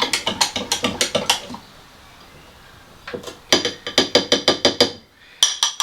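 A spoon clinking rapidly against the side of a measuring jug while stirring tomato puree into melted butter, about six or seven taps a second. There are two runs of stirring with a short pause between them.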